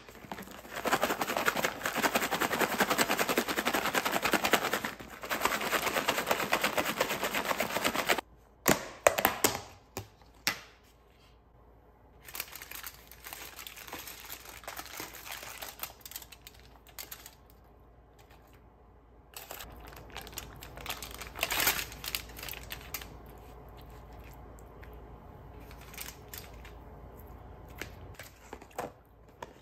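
Salad shaken hard inside a lidded plastic meal-prep container: a dense rattle for about seven seconds. After it come scattered plastic clicks and light handling rustles as the lid comes off and salmon is forked onto the salad.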